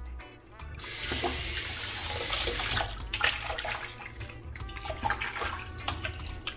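Kitchen tap running into a stainless steel sink of soapy water for about two seconds, then splashing and swishing in the water as a blender jar is washed out.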